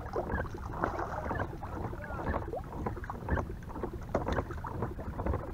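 A small striped bass splashing at the water's surface in short, irregular splashes as it is reeled up to a kayak and lifted out of the water.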